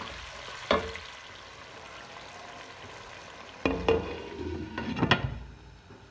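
Chicken sizzling as it fries in a little water in a pot, with a sharp knock about a second in, likely the wooden spoon against the pot. Several seconds in, a glass lid clatters onto the pot with a few knocks, and the sizzling then fades.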